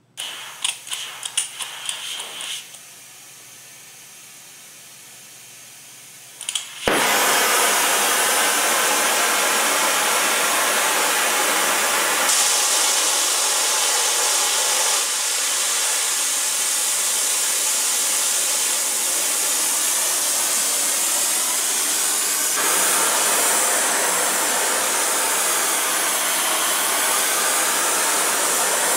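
Oxy-acetylene torch with a rosebud heating tip: after a few clicks and a faint hiss, a loud steady hiss of the flame starts suddenly about seven seconds in and holds on. The flame is heating the edge of a lawnmower-blade steel to red heat for hardening, before an oil quench.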